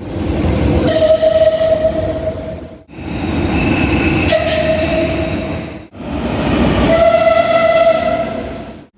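Metrorrey metro train horn sounding three times, each blast a single steady tone lasting about a second over the rumble of a running train, in three short clips cut one after another.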